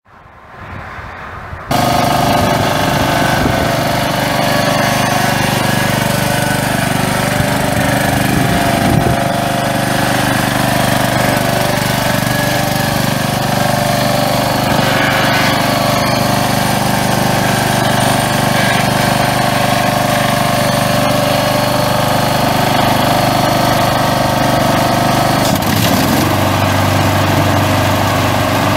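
Two-cylinder Briggs & Stratton Power Plus gas engine of a Toro Time Cutter 1638Z riding mower catching about two seconds in and then running steadily at a constant speed. Its note shifts slightly near the end.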